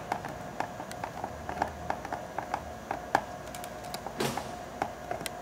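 Small clicks and light taps of a screwdriver and flex cable being handled inside an open laptop chassis, with a brief scraping rustle about four seconds in, over a faint steady hum.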